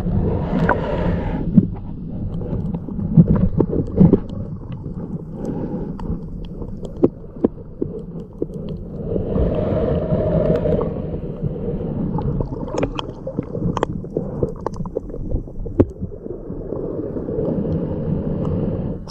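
Sea water sloshing and gurgling around an underwater camera, a low muffled rumble with scattered sharp clicks and knocks. Brighter rushes of water swell up about a second in and again around ten seconds in.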